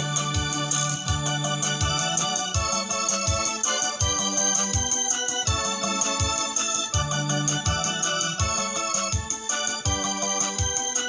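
Electronic arranger keyboard played with an organ voice, chords held over the keyboard's own drum rhythm and bass accompaniment. A low beat comes about twice a second, with quick ticks above it.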